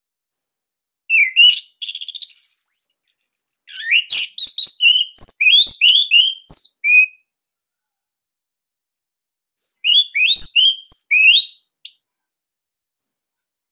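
Orange-headed thrush (anis merah) singing: two loud bursts of quick, varied whistled notes and chirps, the first starting about a second in and running some six seconds, the second about ten seconds in and lasting about two seconds.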